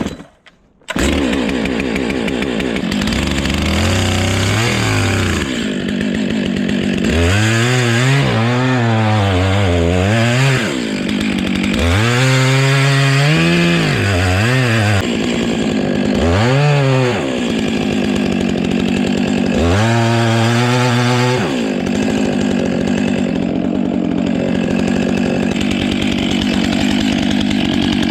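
Two-stroke chainsaw starting up about a second in and then running at high speed. Its engine pitch sags and recovers about five times, as it does when the chain bites into wood, before running steady.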